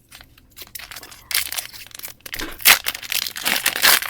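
Foil wrapper of a Pokémon card booster pack crinkling and tearing as it is opened by hand. It starts with a few light clicks, turns into dense crinkling after about a second, and is loudest near the end.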